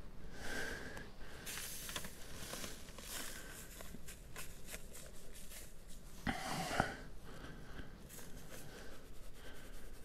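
Dry granulated sugar being poured out onto a sheet of newspaper laid over a beehive's frames: crackling, rustling paper and a running hiss of grains, with a brief louder burst a little past six seconds in.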